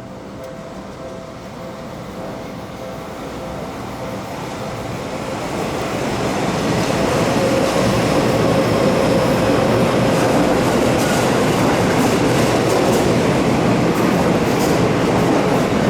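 Seibu Railway electric train approaching and running through the station. Its noise grows louder over the first six seconds, then holds steady, with wheels clicking over rail joints.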